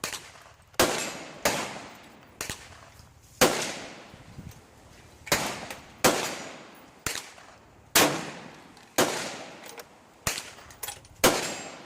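Gunfire at a shooting range: about a dozen sharp reports at irregular intervals, some much louder than others, each with a short fading tail. They come too close together for one bolt-action rifle, so other shooters' guns are heard besides any fire-forming shot.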